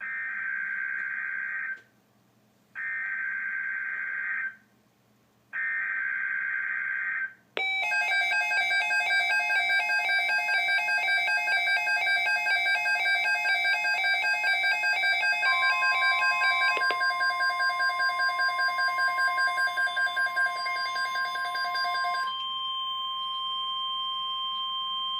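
Three short bursts of NOAA Weather Radio EAS/SAME header data, the burst tones that encode a Tornado Watch, each about two seconds long. About seven seconds in, weather alert radios start sounding rapid pulsing electronic alarms. Partway through, a steady weather-radio alert tone joins, and near the end a high steady beep. All of it cuts off just before the spoken watch message.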